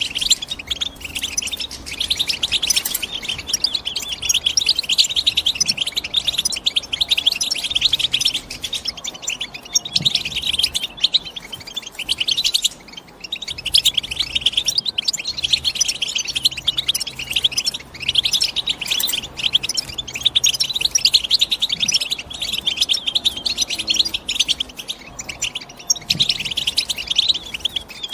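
European goldfinch singing: a fast, dense twittering song in long phrases, broken by short pauses about 13 and 25 seconds in.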